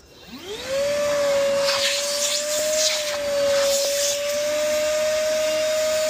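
Milwaukee wet/dry vacuum switched on, its motor spinning up with a rising whine in the first second, then running steadily, sucking out a clogged mini split condensate drain line.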